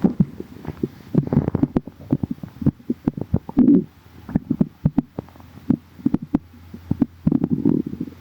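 A person's stomach growling: irregular bubbly gurgles and small pops, with louder runs of rumbling about a second in, at about three and a half seconds, and again near the end.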